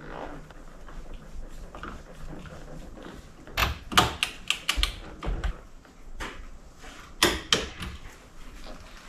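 Sharp metallic clicks and knocks from a hand wrench working the steering wheel's centre nut onto the column: a quick run of clicks about three and a half seconds in, then another short cluster a few seconds later.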